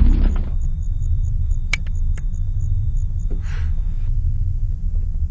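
Low, steady rumble of film-trailer sound design, with two sharp clicks about two seconds in and a brief hiss a little after three seconds.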